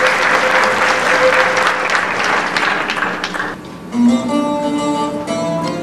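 Audience applauding, cut off abruptly after about three and a half seconds; about four seconds in, music on plucked strings begins.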